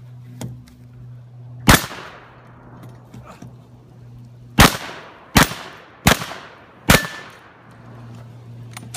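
Five gunshots from a long gun. There is one shot about two seconds in, then four in quick succession about three-quarters of a second apart, each followed by a short echo.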